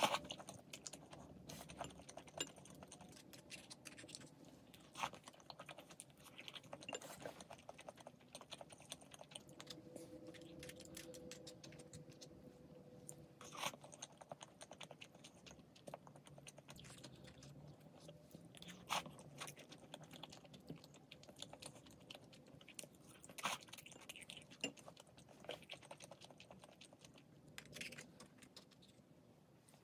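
Faint eating sounds: chewing and biting, with scattered small clicks and taps of utensils at irregular intervals.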